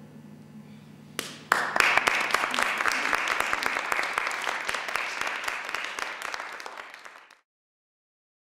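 Audience applauding: clapping breaks out suddenly about a second and a half in, gradually dies down, and cuts off abruptly to silence near the end.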